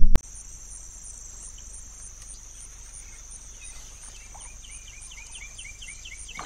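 A steady, high-pitched insect chorus of crickets or similar insects, pulsing evenly, after a brief loud rumble that cuts off at the very start. Near the end, a quick series of short chirps, about four or five a second, joins it.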